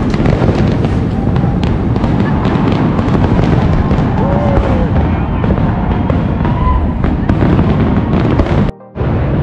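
Fireworks display going off continuously: a dense rumble of bursts with scattered sharp cracks, broken by a brief dropout near the end.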